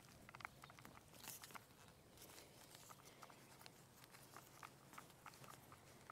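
Faint, scattered small clicks and crackles of plastic: drip-irrigation mainline tubing being pushed onto a filter-regulator fitting and its nut tightened down by hand.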